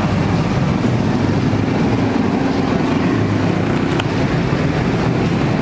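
Steady low rumble of road traffic noise, with a faint click about four seconds in.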